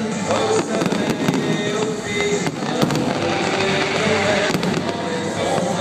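Fireworks display: a dense, continuous run of crackles and bangs with no pause.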